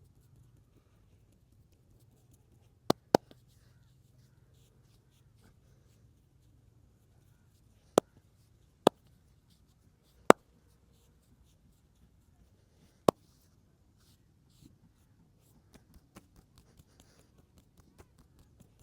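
Joints cracking during a massage: six sharp, loud pops, the first two close together about three seconds in, then singles spread over the next ten seconds. A run of faint light taps follows near the end.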